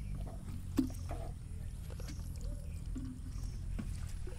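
Meat cleaver cutting raw pork belly on a wooden chopping board: one sharp knock of the blade on the board about a second in, then a few faint clicks, over a low steady rumble.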